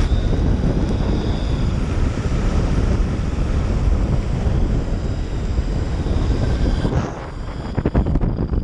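Electric mountainboard riding over concrete: heavy wind buffeting on the action-camera microphone over the rumble of the board's pneumatic tyres. About seven seconds in the wind eases and a series of sharp knocks comes through.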